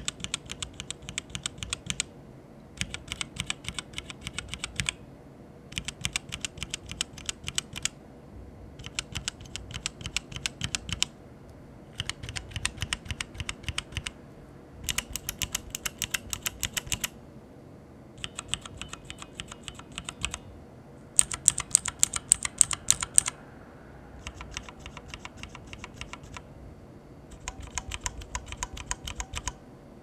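Mechanical keyboard switches in a switch tester, pressed rapidly in about ten runs of roughly two seconds each, one switch type per run. The runs begin with a ZealPC Tealios 67g linear switch and then a ZealPC Zealios 65g tactile switch. The run about three-quarters of the way through is the loudest.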